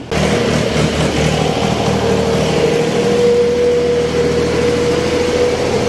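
Ursus 2812 tractor's diesel engine running steadily as the tractor drags a rear blade through the street mud, with a steady whining tone over the engine note.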